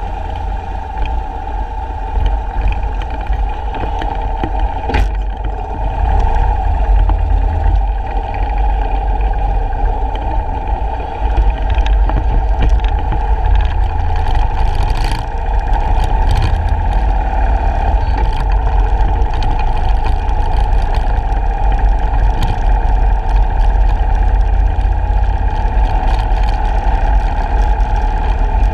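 Harley-Davidson motorcycle's V-twin engine running as the bike rides along, with wind rumbling on the microphone; the sound gets louder about six seconds in and stays steady after that.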